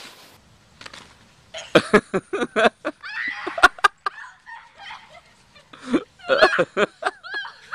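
People laughing and shrieking in short choppy bursts, in two clusters separated by a quieter gap.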